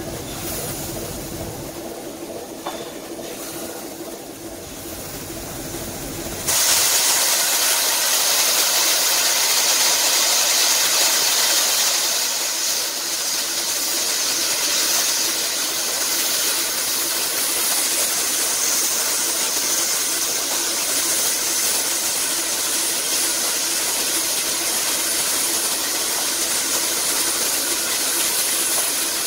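Steam locomotive releasing steam: a loud, steady hiss cuts in suddenly about six seconds in and keeps going, easing only slightly later on. Before it there is a quieter stretch with a steady low hum.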